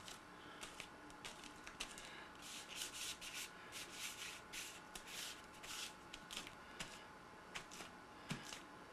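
Fingers dabbing and rubbing paint across a sheet of paper: a run of short, soft, scratchy strokes, thickest in the middle of the stretch and thinning out near the end.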